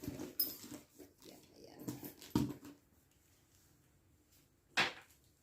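A handbag being handled: soft knocks and rustles, with a sharp click or snap just before the end.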